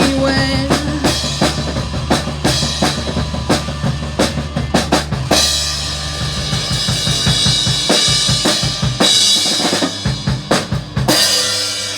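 Live rock band playing the end of a song: the last sung note dies away in the first second, then drum kit fills and cymbal crashes ride over a held bass. After the middle the band breaks into stop-start hits and a final cymbal wash that cuts off about a second before the end.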